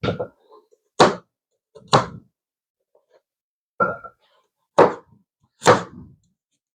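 Knife chopping carrots into big pieces on a cutting board: six separate heavy chops, roughly one a second, with a longer pause about halfway through.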